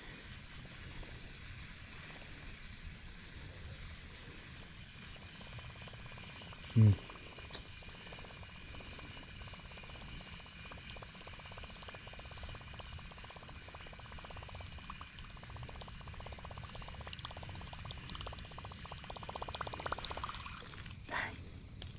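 Steady high-pitched chorus of evening insects, with a faint rapid ticking in the second half.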